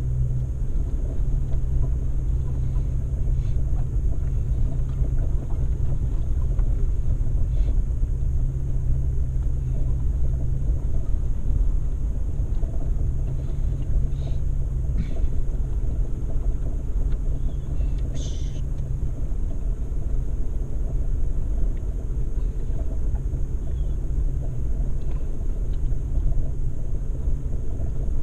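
Off-road vehicle engine running steadily while driving a rough mountain road: a continuous low drone, with a few faint clicks and knocks and one brief higher scrape.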